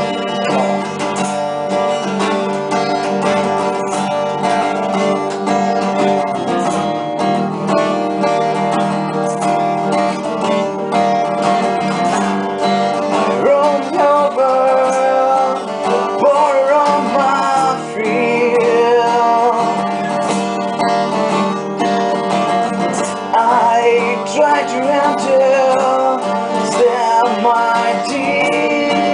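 Two acoustic guitars playing together through an instrumental passage of a song.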